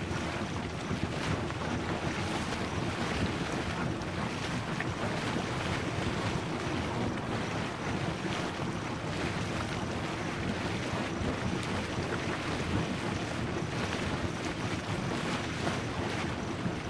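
Steady rushing noise of wind on the microphone mixed with the hiss of the Red Spouter hot spring's venting steam.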